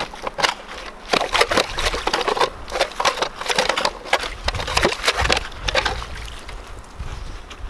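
Hand-cranked ice auger drilling into pond ice: the blades crunch and scrape in an irregular series of strokes as the handle is turned.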